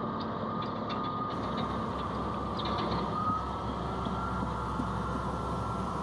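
Komatsu bulldozer running as it travels, heard from inside the cab: a steady engine drone with scattered rattles and a high tone that comes and goes.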